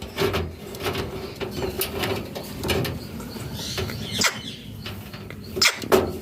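Scattered sharp clicks and knocks from a pet ringneck parrot, with a faint short call about three seconds in, over a steady low hum.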